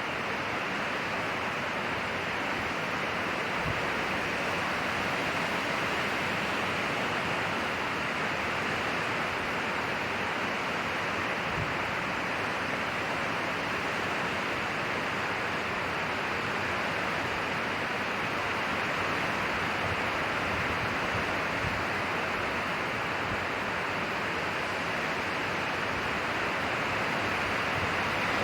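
Wind blowing steadily through pine trees, an even rushing sound. The recording is panned back and forth between left and right for bilateral stimulation.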